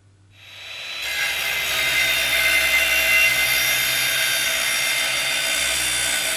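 A power tool's motor starts up about half a second in and comes up to speed within a second. It then runs steadily at high speed, a loud whirring with a steady whine.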